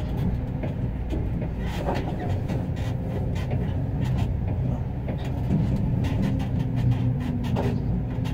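Tractor-drawn ladder fire truck driving, heard from inside its rear tiller cab: a steady low rumble of engine and road, with scattered light rattles and clicks.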